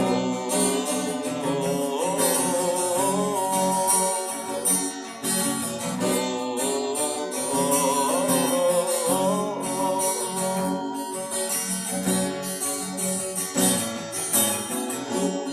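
Acoustic guitar strumming in an instrumental break of a song, with a melody line carried over the chords.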